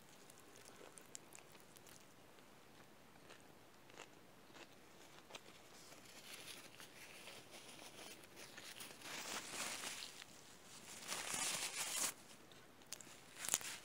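A person chewing a mouthful of cheeseburger close to the microphone: faint, wet mouth and chewing sounds with a few small clicks, growing into louder noisy stretches in the second half.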